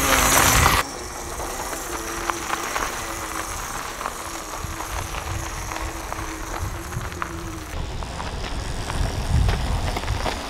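Small electric mini bike rolling over gravel: tyres crunching, loudest in the first second as it rides close by, then quieter with scattered crackles of stones as it moves off. There is no engine noise, only a faint steady tone.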